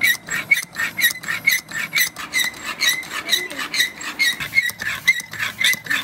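Air pump inflating a plastic ball through a needle on a hose, worked fast in a steady rhythm of about four strokes a second, each stroke a short squeaky hiss of air.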